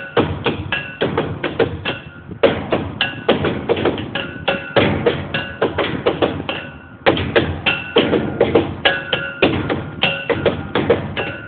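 Rapid, rhythmic strikes on pitched percussion instruments, each hit ringing briefly with a clear tone, with short lulls about two seconds in and around seven seconds.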